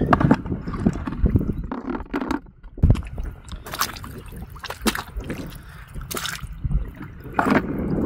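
Footsteps squelching in wet tidal-flat mud, with irregular wet clicks and pops over a low rumble.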